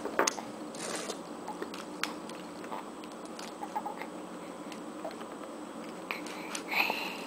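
Scattered light crinkles and clicks of aluminium foil being handled as a baby picks at a foil-wrapped baked sweet potato, with a short high squeak near the end.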